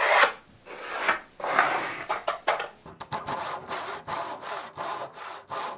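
Handsaw cutting through a sheet of plywood: repeated rasping strokes, settling into a steady rhythm of about three strokes a second in the second half.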